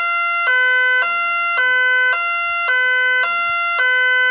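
Fire engine siren in two-tone mode, switching steadily between a high and a low note about every half second.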